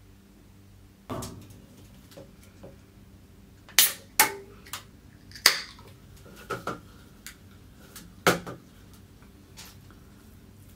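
Close-up eating and handling sounds: a scatter of sharp clicks and crackles, the loudest about four and five and a half seconds in, as fried rice and fried chicken are picked up by hand and an aluminium drink can is handled.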